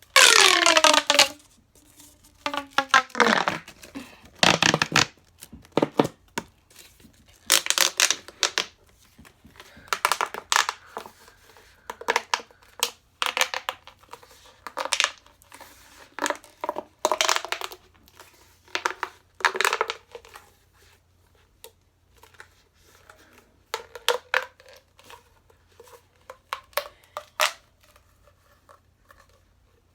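Plastic pop tube fidget toy being stretched and pushed back together, its ridged sections popping and crackling in short bursts every second or two. It opens with a falling tone.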